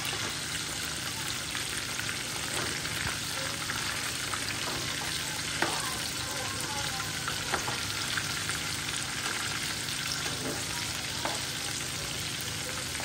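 Marinated chicken pieces sizzling as they fry in hot oil in a pan, a steady crackle. There are a few light clicks from the metal slotted spatula moving the pieces against the pan.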